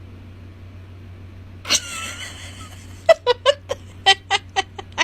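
A cat crying: one drawn-out, wavering cry just under two seconds in, then a quick run of short, sharp cries, about four a second, to the end.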